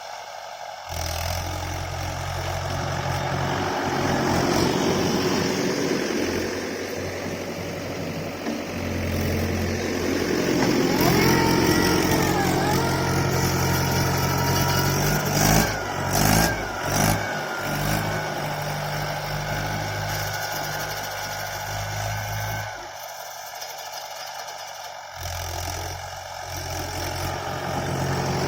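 Tractor diesel engine running under load and revving, with a whine that rises and falls in the middle and a few loud knocks about halfway through.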